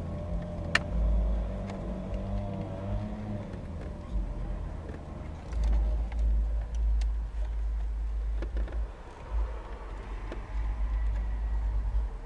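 Gusty wind rumbling on the microphone, with a vehicle's engine drone that fades out a few seconds in. Scattered small clicks come from wiring and plastic trim being handled behind the dashboard.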